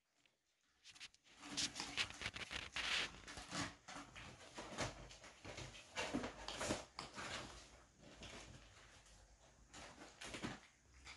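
Kittens playing: an irregular run of scampering paw taps, small thumps and rustling of a fabric play tunnel, starting about a second in.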